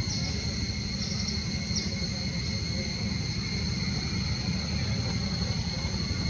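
Outdoor ambience: steady high-pitched insect drone over a constant low rumble, with a few faint short chirps in the first two seconds.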